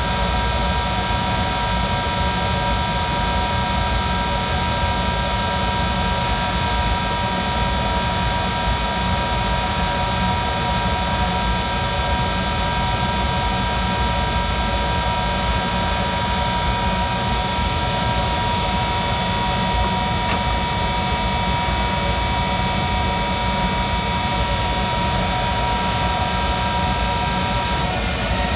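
Monarch 10EE lathe running steadily with a whine of several steady tones, the strongest a high, even note, over a mechanical hum. The pitch dips briefly near the end.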